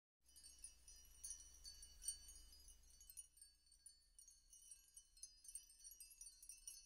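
Faint, high tinkling of chimes in the background music track, with a low hum under the first three seconds.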